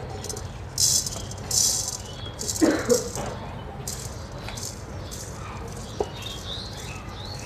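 Red beni rice grains pouring from a clay bowl into a clay cooking pot, rattling and hissing against the clay in several short pours in the first half.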